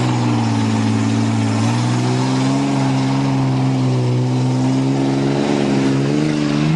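Ford Ranger pickup's engine held at full throttle under heavy load, its pitch staying high and nearly level with a slight rise about two seconds in and a small dip and recovery near the end, as the truck strains up a steep hill in reverse with mud slowing it.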